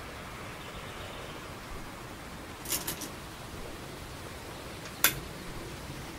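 Go stones clicking on a wooden board: three quick light clicks about three seconds in as stones are taken off, then one sharp click of a stone set down about five seconds in, over a steady hiss.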